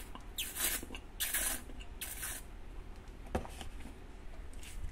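Small soy-milk carton being drunk from: three short, hissy slurping sips close together, then a single sharp knock a little past three seconds in.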